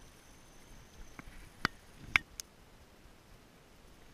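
A few short, sharp clicks and taps, four in just over a second about halfway in, over a faint, quiet background. They are handling noise as the angler moves and takes up his spinning rod and reel.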